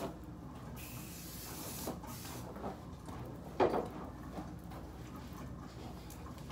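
Steady low hum of a running ceiling fan, with soft rustling as hair is gathered up by hand, a brief hiss about a second in, and a single short knock about three and a half seconds in.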